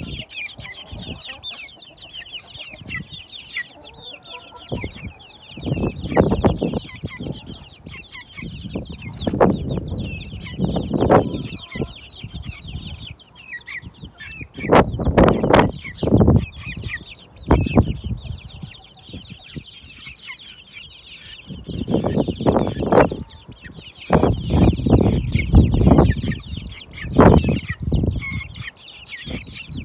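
A flock of young, half-grown chickens peeping and cheeping continuously in high, short chirps. The chirping is broken by irregular low rumbles that come and go and are louder than the birds.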